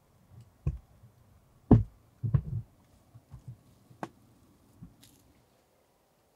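A series of irregular dull knocks and thumps, the loudest about two seconds in, over near silence.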